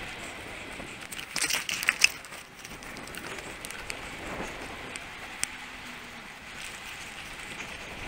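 Mountain bike rolling along tarmac, with a steady rush of tyre and wind noise. A short burst of rattling clicks comes about a second and a half in, and a single click later.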